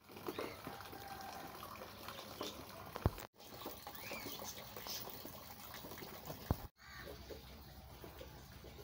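Wet garden ambience after rain: water dripping and trickling, with a few short bird chirps. It breaks off twice, at about a third and two thirds of the way in, each time just after a sharp thump.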